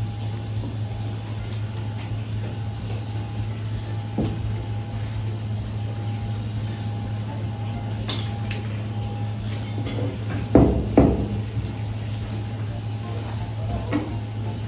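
Light knocks and scrapes of a kitchen knife against a plastic cutting board as fish fillets are cut, over a steady low hum and a faint steady tone. A short clatter of hard knocks, the loudest sound, comes about ten and a half seconds in.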